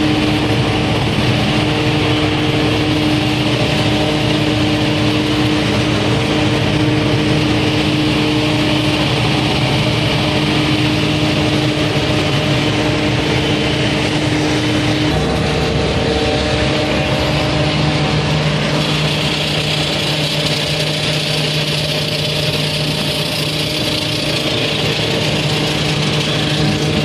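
Loud, steady noise of a parked airliner and its ground-service equipment: an engine hum with a few steady tones over a rushing hiss. The tones shift slightly about halfway through.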